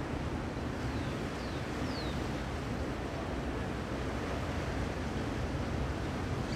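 Steady wind noise buffeting the microphone, a constant rushing rumble, with three short falling chirps about one to two seconds in.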